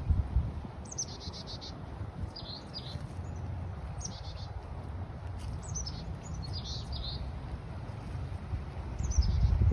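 Songbirds singing short, high phrases, several of them quick trills of repeated notes, one after another. Wind rumbles on the microphone throughout, gusting hardest at the start and again near the end.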